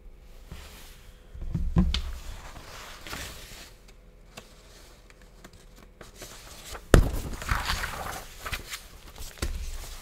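Handling noises close to the microphone: a few soft thumps about two seconds in, then a sharp knock about seven seconds in followed by rustling.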